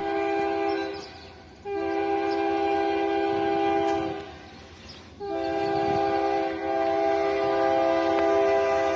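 Diesel freight locomotive's multi-chime air horn sounding a steady chord in three long blasts; the third starts about five seconds in and is held on.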